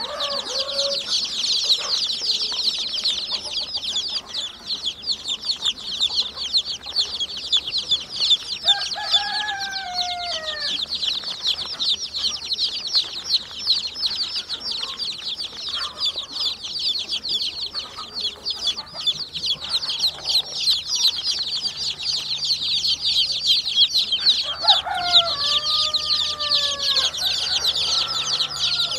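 Newly hatched chicks peeping in a dense, continuous chorus of rapid, high, overlapping chirps. Twice, about 9 seconds and 25 seconds in, a few lower, falling calls sound over them.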